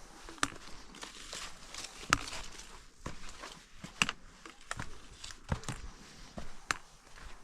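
Hiking footsteps crunching on a forest trail, with sharp irregular clicks every second or two.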